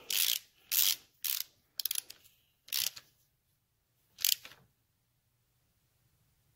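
Hand ratchet clicking in six short runs of back-strokes as a cover bolt is tightened down, stopping a little past halfway.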